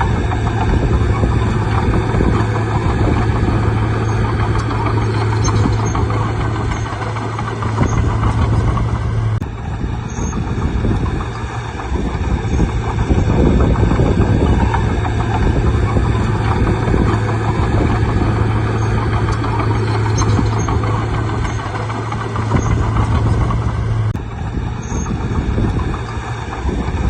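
Bulldozer's diesel engine running with a steady low drone over a dense rumble, the sound shifting abruptly about nine and a half seconds in and again near the end.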